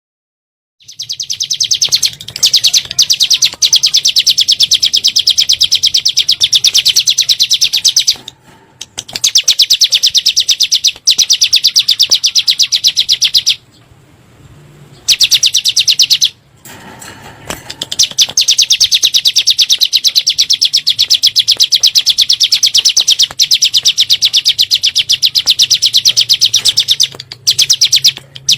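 Ciblek gunung (a prinia) singing its 'nembak' song: long runs of very fast, high, evenly repeated notes, each run lasting several seconds, broken by a few short pauses.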